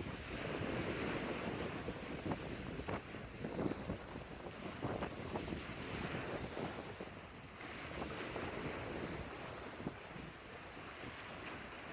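Lake waves washing onto the shore, swelling and easing, with wind buffeting the microphone.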